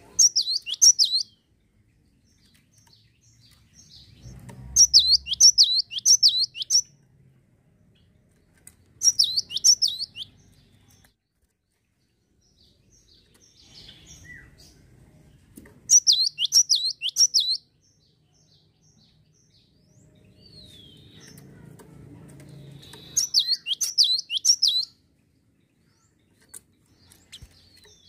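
Cinereous tit (gelatik) singing in five short bouts a few seconds apart, each a quick run of repeated, steeply falling whistled notes.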